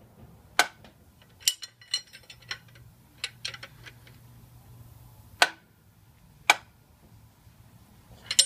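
About ten sharp metallic clicks and clinks, irregularly spaced, from a ratchet and socket turning the screw of a cylinder-liner puller on a Toyota L-series diesel block.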